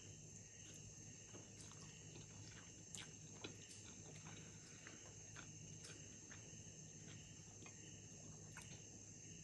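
Near silence: faint chewing and scattered soft mouth and chopstick clicks from someone eating noodles, over a steady faint high-pitched whine from the recording.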